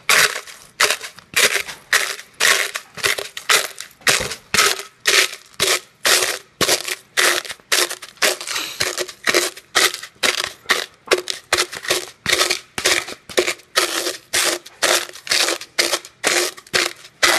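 Oven-dried eggshells being crushed in a plastic container by repeated pounding: sharp crunching strokes, about two to three a second.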